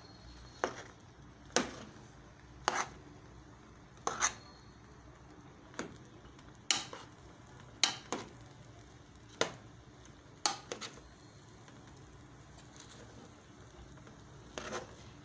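Metal spoon knocking and scraping against the side of a metal cooking pot while stirring rice, about one sharp clink every second, easing off for a few seconds near the end.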